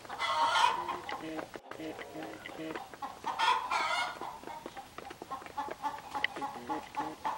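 Hens and a rooster clucking as they feed, with short low clucks throughout and louder calls about half a second in and again around three and a half seconds. Small clicks of beaks pecking grain off concrete.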